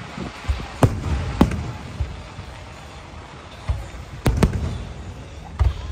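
Aerial firework shells bursting: sharp bangs, two about a second in and a close pair a little past four seconds, with softer thumps and a low rumble between.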